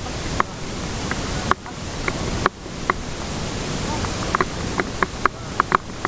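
Steady rush of river water with wind on the microphone, as an inflatable raft moves downstream. Short sharp ticks and knocks come through it, more often in the last two seconds.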